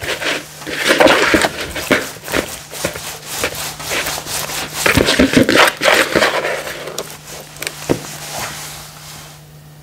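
Hands rubbing and massaging a wet marinade into a raw turkey leg in a plastic bowl: irregular wet squishing and slapping of palms and fingers on the skin, dying away near the end as the hands lift off.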